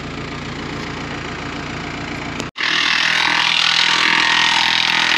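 Tractor engine idling steadily. About two and a half seconds in, the sound cuts off abruptly and a louder, steady hiss takes over.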